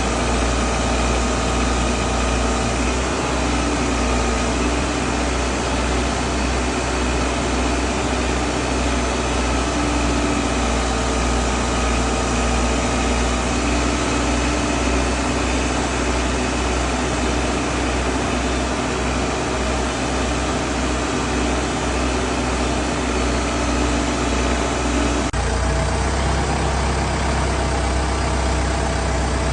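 Backhoe loader's engine running steadily, with an abrupt change in its tone about 25 seconds in.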